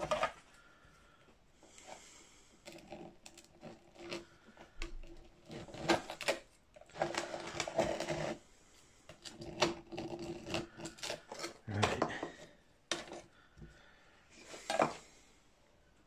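A steel rule scraping across the top of a mould flask to strike off loose casting sand, in a series of gritty strokes with small knocks and clatter between them.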